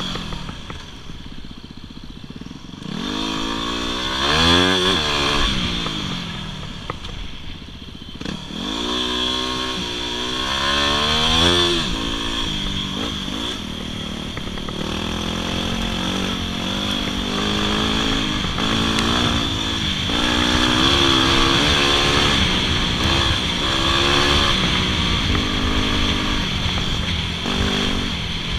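Yamaha WR250R's 250 cc single-cylinder four-stroke engine under way on a dirt trail. The revs climb steeply twice in the first twelve seconds as the bike accelerates, then rise and fall more gently as it holds pace.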